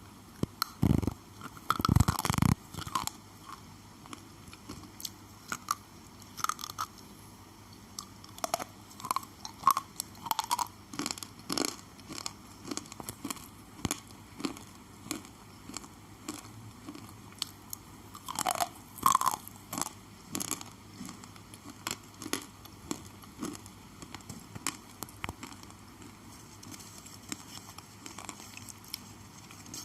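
Thick slate pencils being bitten and chewed: sharp crunching snaps as pieces are bitten off, loudest about two seconds in and again around eighteen to nineteen seconds, with regular crunching chews between.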